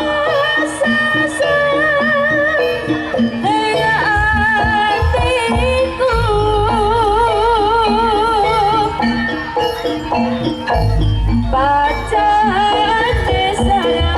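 Live jaranan (kuda lumping) music: a percussion ensemble with deep drum and gong strokes under a high melody line held with a wide vibrato.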